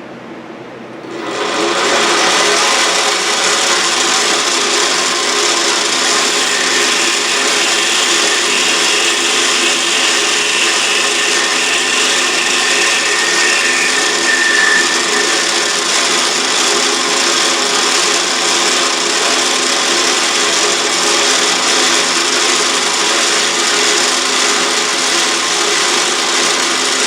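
Autobox 8x16 mini lathe running and taking a facing cut across the workpiece: about a second in the sound jumps up to a loud, steady hiss over a gear hum, with a faint whistle partway through.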